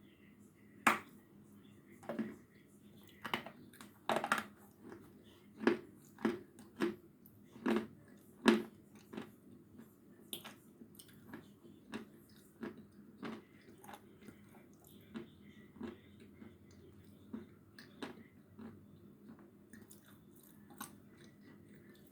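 Sawn Khrapovsky edible chalk bitten and chewed close to the microphone. A sharp crunch comes about a second in, followed by a run of loud crunches. After about nine seconds the crunches turn softer and sparser as the chalk is chewed down.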